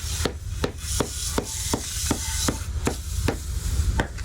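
Quick series of sharp taps or knocks, about three to four a second and slightly uneven, over a steady low rumble.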